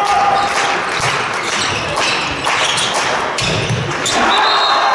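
Sounds of handball play in a sports hall: the ball bouncing and knocks on the court floor, repeated irregularly over a constant background of players' and spectators' voices echoing in the hall.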